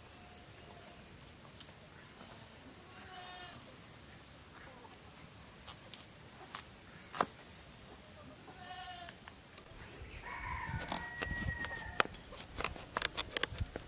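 Village farm animals calling: a goat bleating twice, then a rooster crowing for about two seconds, with high short bird chirps between. A quick run of sharp knocks and clicks comes near the end.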